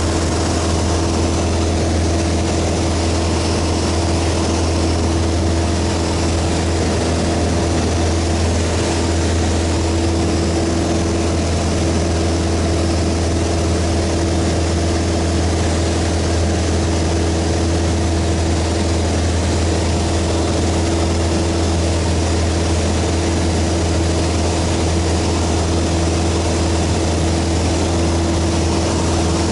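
Piston engine and propeller of a small single-engine airplane droning steadily in flight, heard inside the cabin together with the rush of air.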